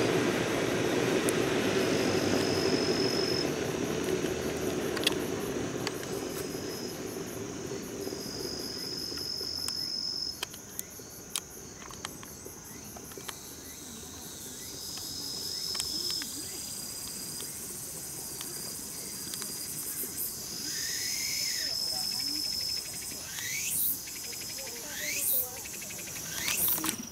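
Insects singing: a high, steady buzz that comes and goes in stretches of a second or two. A low rumble fades away over the first eight seconds or so, and a few quick rising calls sound near the end.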